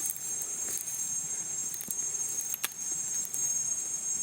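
Insects trilling steadily at a high pitch, with a single sharp click about two and a half seconds in.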